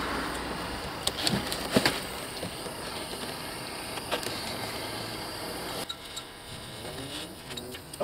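Handheld gas torch burning with a steady hiss as it heats an old lead battery terminal to melt it off the cable ends, with a few sharp metal clinks from the pliers gripping it. The hiss drops away about six seconds in.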